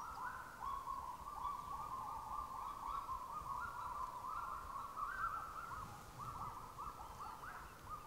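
A pair of kagus singing together: a steady run of short, hooting notes that rise and fall, about three a second, the two birds' series overlapping at slightly different pitches.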